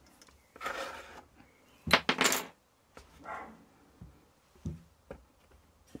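Small hard tools and parts being handled on a workbench: a brief rustle, then a cluster of sharp knocks and clatter about two seconds in, followed by scattered light clicks and taps.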